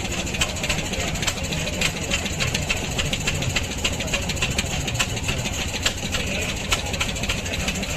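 Rolls-Royce Meteor V12 tank engine running steadily and loud, a low rumble with a rapid, uneven clatter of sharp ticks over it.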